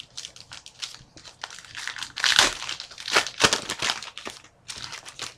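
Plastic or foil trading-card pack wrapper being torn open and crumpled by hand, in a run of irregular crinkles that are loudest in the middle.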